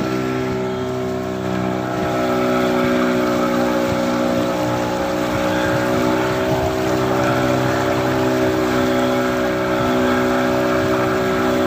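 15 hp outboard motor running steadily at cruising speed, with water rushing along the hull of the small boat; the engine gets a little louder about two seconds in.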